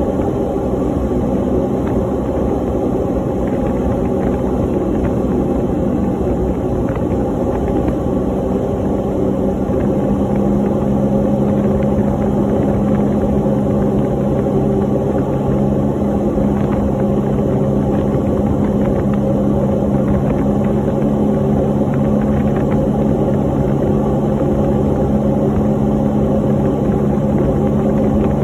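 Aircraft engine drone heard from inside the cabin in flight: a loud, steady hum with several held tones over a rushing noise. The engine note changes slightly about ten seconds in.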